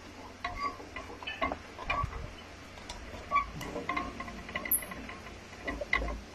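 Scattered light clicks and faint metallic tinkles from a white metal-framed tabletop clock being handled, over a low steady hum.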